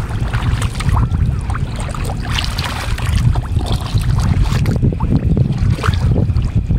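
Hands groping in shallow water and mud: irregular splashing and sloshing over a steady rumble of wind on the microphone.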